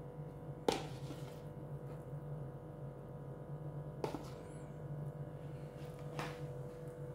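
Roasted vegetables being placed on a wooden cutting board from a plastic tub: three light knocks, the first and loudest about a second in, the others near four and six seconds, over a steady low hum.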